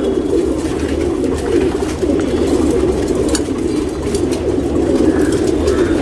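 Many domestic pigeons cooing together: a steady, unbroken mass of overlapping low coos.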